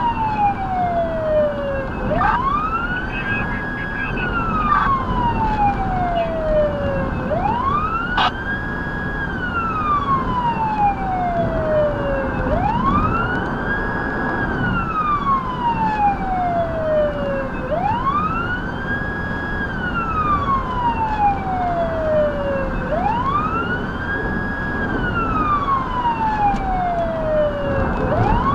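Federal Signal Touchmaster Delta electronic siren sounding a wail, heard from inside the responding vehicle over steady road noise. Each cycle rises quickly, holds briefly at the top, then falls slowly, about once every five seconds.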